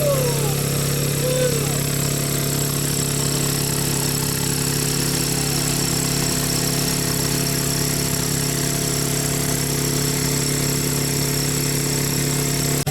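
Engine-driven water pump running steadily at constant speed, a continuous even drone.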